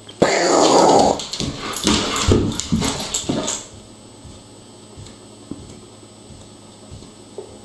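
German shepherd growling and whining in rough grumbles, stopping about halfway through.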